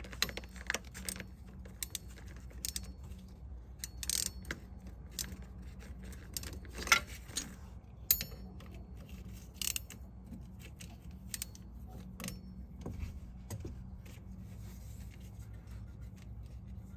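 Hand tools clinking and scraping against metal engine parts: irregular sharp clicks and taps, the loudest knock about seven seconds in.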